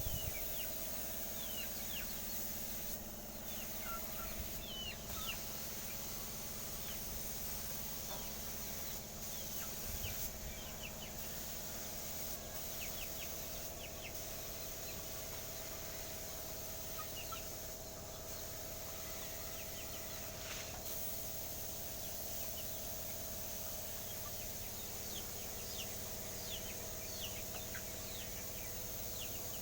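Birds chirping: many short, high, falling chirps scattered through the whole stretch, over a steady low hum and a high steady hiss.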